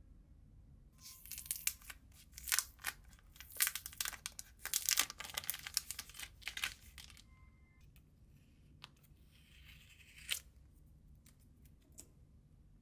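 Thin plastic protective film crinkling and tearing as it is peeled off a new smartphone, a dense run of sharp crackles starting about a second in and lasting some six seconds. Lighter rustling follows, with a couple of small clicks near the end.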